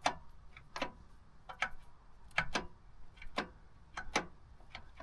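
Sharp metallic clicks, about ten, unevenly spaced and some in quick pairs, as the newly fitted gear shift lever and support bar of a Honda GL1500 Gold Wing are worked back and forth.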